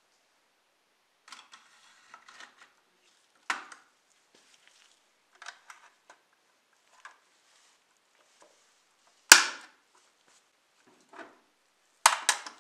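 A die-cast model car's body and chassis being handled and fitted together: scattered light clicks and taps, one sharp snap about nine seconds in, and a few quick knocks near the end.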